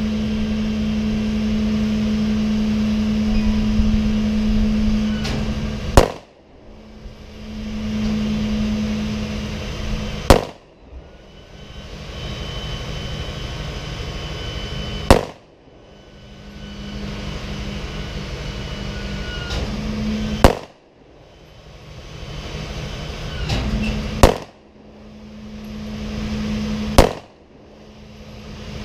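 Kel-Tec PF9 9mm pistol firing Speer 115-grain Gold Dot hollow points in slow fire: six single shots, about four to five seconds apart, all feeding without a failure. A steady low hum runs between the shots and drops away briefly after each one.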